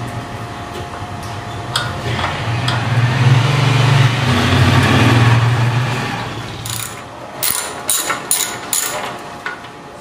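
A small engine's steady hum swells over a few seconds and then fades away, followed near the end by a series of sharp metallic clicks and taps as motorcycle parts are worked with a screwdriver.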